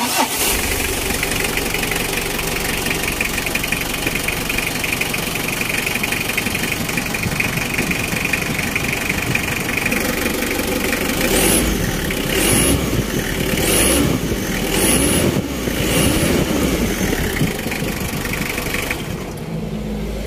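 Mitsubishi L300 diesel engine running at idle after a freshly installed timing belt, then blipped about five times in quick succession around the middle before settling back to idle.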